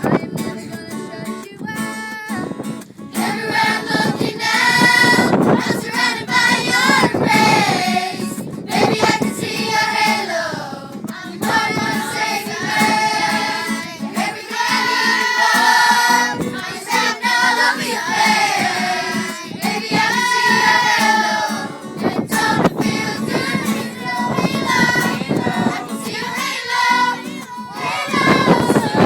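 Children's choir singing a song together, unaccompanied voices carrying a melody throughout.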